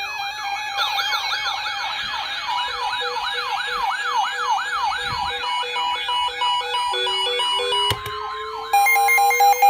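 Several electronic sirens sounding at once: a fast yelp sweeping up and down about three times a second over steady and stepped tones. A slow rising wail begins about seven seconds in, and a loud, stuttering high-pitched pattern comes in near the end.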